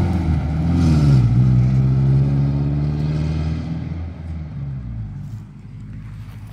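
Pickup truck engine pulling away: the engine note drops about a second in, then holds steady and fades as the truck moves off into the distance.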